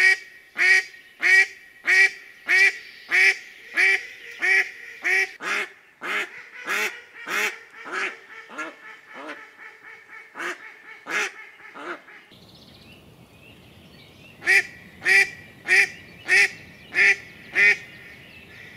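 A chubaraya decoy hen duck quacking in long series to call in drakes: a run of loud quacks about one and a half a second that grows fainter over about twelve seconds, then after a short pause a second run of six loud quacks.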